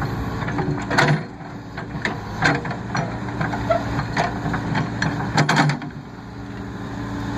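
Case 580E loader backhoe's diesel engine running steadily, with a few sharp metallic clanks about a second in, midway, and twice in quick succession later on.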